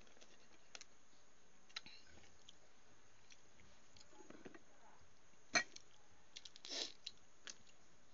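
Balut eggshell being cracked and peeled by hand over a bowl: scattered faint clicks and crackles, with one sharper click a little past halfway and a short hiss about a second later.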